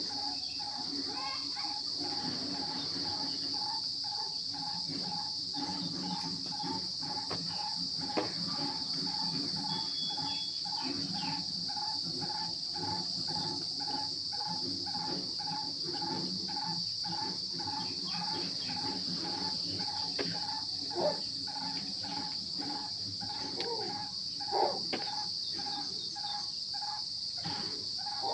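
Steady, high insect chirring, with a lower note repeating evenly about twice a second and scattered soft clicks and a few knocks.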